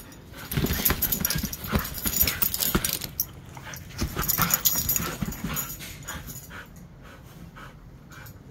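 Siberian huskies moving about and settling on a sheet-covered dog bed close by. Two spells of noisy shuffling, about a second in and again about four seconds in, then quieter.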